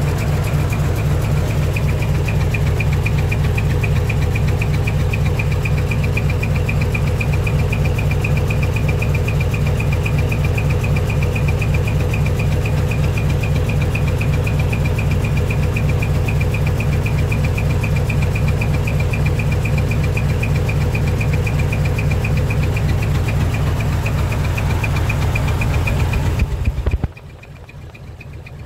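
Diesel engine of a decorated art truck with a split exhaust manifold, idling loudly with a fast, even pulsing exhaust beat. The sound cuts off abruptly near the end, leaving a much quieter background.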